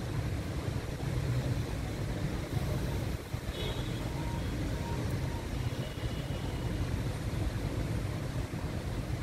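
Steady low rumble of traffic, engines idling and creeping in a jam, with faint short high tones about three and six seconds in.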